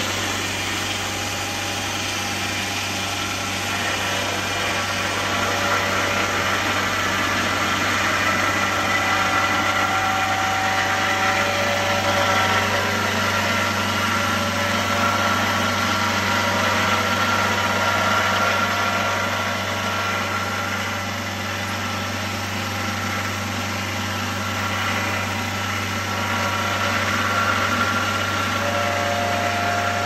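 Diesel engine of a 1979 Mighty Mite sawmill running steadily under load while its vertical and horizontal circular saw blades cut through a log lengthwise, with a constant low engine drone and the steady whine of the blades over it.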